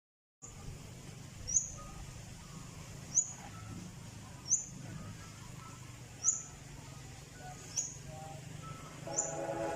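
A bird repeating one short, high, upward-sweeping chirp about every one and a half seconds, six times, over faint steady background noise.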